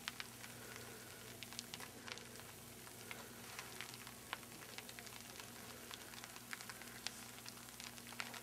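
Freezing rain falling on snow and a pickup truck: a faint steady hiss full of tiny scattered ticks as the drops hit and freeze.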